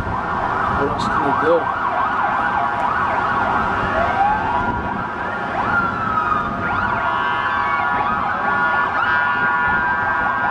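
Several emergency-vehicle sirens wailing at once, their rising and falling pitches overlapping over a dense street din.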